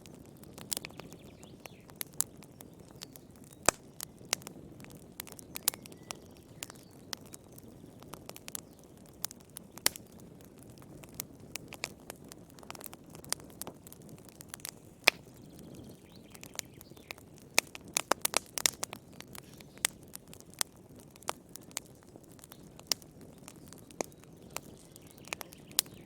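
Wood fire burning in a fireplace: irregular sharp crackles and pops over a low, steady rumble of flames, with a quick run of pops about two-thirds of the way through.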